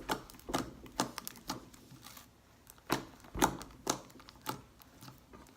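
Freshly activated glue slime being squished and worked by hand, giving irregular sharp clicks and pops from trapped air.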